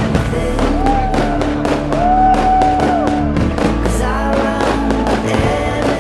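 Loud music playing, with sustained melody notes, and with firework bangs and crackles over it.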